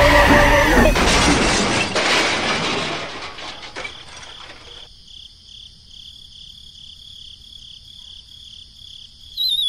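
Crash sound effect for a toy train hitting a toy tractor: a loud smash with breaking glass about a second in, fading away over the next two seconds. A steady high, pulsing chirp follows, and near the end a loud wavering whistle starts sliding down in pitch.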